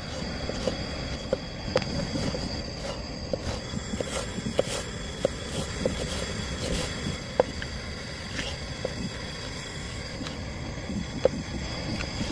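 Chef's knife chopping chili peppers and green onions on a wooden cutting board: sharp, irregular taps of the blade on the board, about one or two a second, over a steady low background noise.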